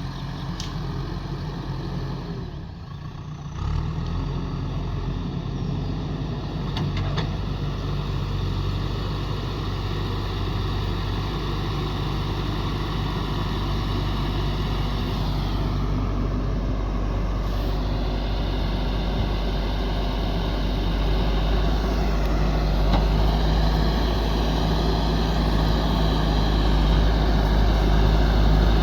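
Diesel engine of a JCB 3DX backhoe loader running steadily, its pitch sweeping up and down a couple of times as it works, and growing louder toward the end.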